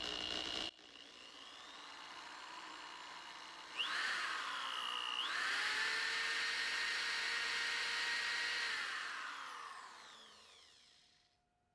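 A DeWalt electric sander powered from a CyberPower UPS running on battery: its motor starts up about four seconds in, runs steadily with a whine, then slows and stops near the end, showing the UPS's replacement batteries can carry the load. A steady UPS warning beep sounds for a moment at the start.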